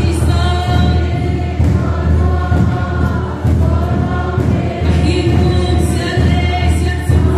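A choir singing a gospel hymn in harmony with musical accompaniment, in long held notes that change about every second.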